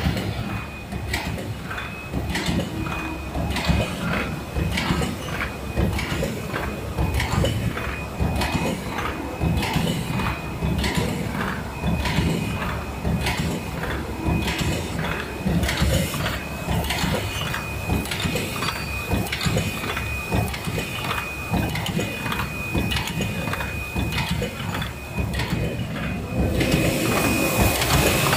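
A MYZG-100 paper lid forming machine running in production, its turret and forming dies making a steady, regular mechanical clatter of repeated strokes under a steady high whine. Near the end a louder hiss comes in.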